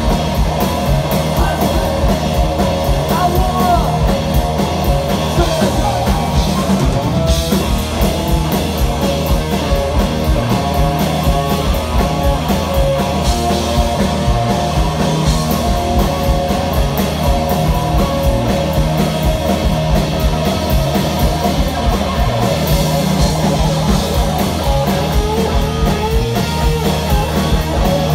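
Live punk rock band playing: electric guitar, bass guitar and drum kit, loud and steady throughout.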